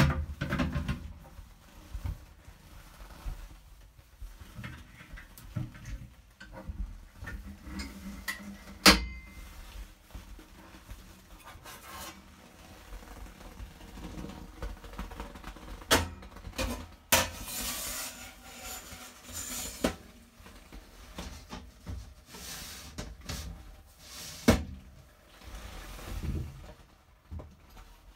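Scattered clicks, knocks and rubbing of hands handling stainless-steel trays and a rack of plastic Petri dishes inside an anaerobic chamber, with the sharpest click about 9 seconds in and a longer rustling rub from about 17 to 20 seconds.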